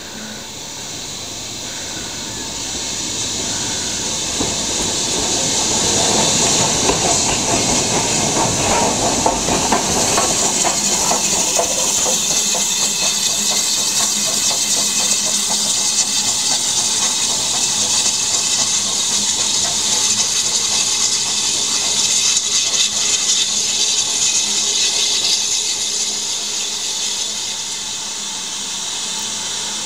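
BR Standard Class 9F steam locomotive 92212 moving slowly past with a loud, steady hiss of escaping steam that builds over the first few seconds and eases near the end.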